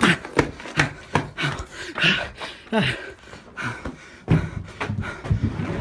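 Heavy, ragged panting: short voiced gasps, each falling in pitch, coming irregularly about twice a second.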